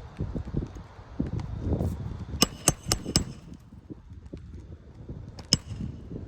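Metal hammer striking with a ringing clang: four quick taps about halfway through and one more near the end, over low rumbling handling noise.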